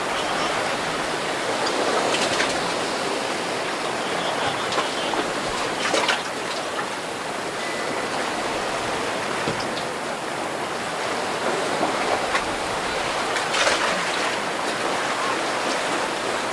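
Rough, choppy sea water rushing and churning as a steady wash, with a few louder splashes breaking through.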